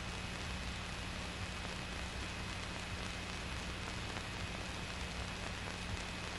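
Steady hiss and low hum of an old film soundtrack, with a faint steady high-pitched tone; no other sound stands out.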